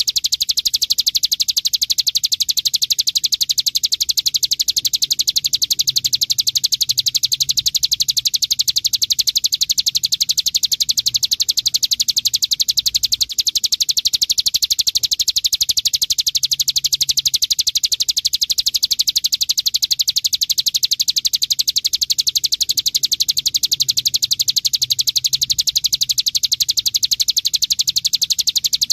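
Bar-winged prinia (ciblek gunung) singing its 'bren' song: a fast, unbroken rattle of high notes like machine-gun fire, with one short break about halfway.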